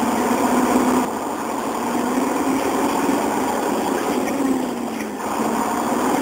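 Truck engine running steadily, its pitch sagging and its level dipping briefly about five seconds in.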